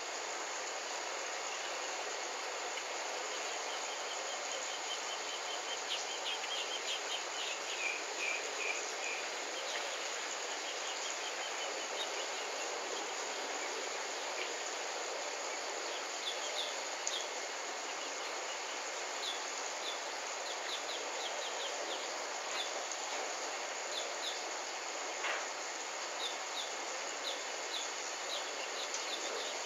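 Steady outdoor background hiss with small birds chirping over it: a quick run of chirps about six seconds in, some falling in pitch, then scattered short chirps through the second half.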